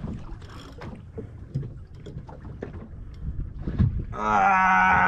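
Wind buffeting the microphone, with scattered light knocks as a heavy spinning rod is pumped and wound against a big amberjack. Near the end comes a loud, drawn-out buzzing tone about a second long.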